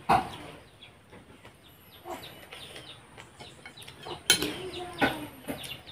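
Metal spoon knocking and scraping against a ceramic plate of sautéed vegetables, with sharp clinks about four and five seconds in. Chickens cluck in the background.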